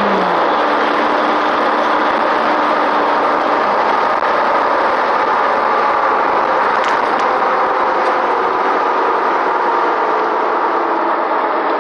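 Steady engine and road noise of a Jeep driving, heard from inside the vehicle, with a low engine tone that dips slightly right at the start.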